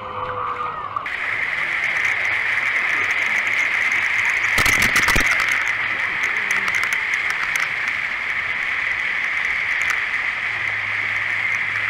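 Steady rush of splashing wave-pool water that gets louder about a second in, with a louder splash about five seconds in.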